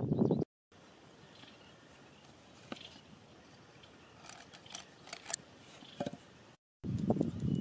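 Close-up handling noise as the scissors-and-bamboo snake trap is set at the burrow: brief rustling and scraping at the start and again near the end. In between are faint background sounds with a few light clicks and taps.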